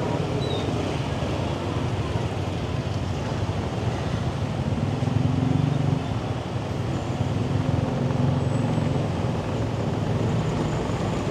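Motorbike riding through busy city traffic: a steady engine hum and road noise, with the surrounding traffic mixed in.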